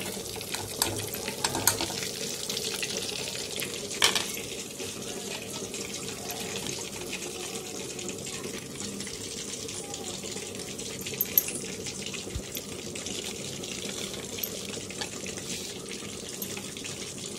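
Hot cooking oil sizzling and crackling steadily in a frying pan after battered chicken drumsticks have been deep-fried, with a couple of sharper clicks from a metal spatula, about 4 and 11 seconds in.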